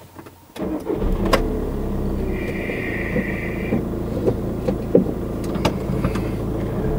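A car engine is started about half a second in and then idles steadily from inside the cabin. Near the middle a high tone sounds for about a second and a half, and there are a few clicks.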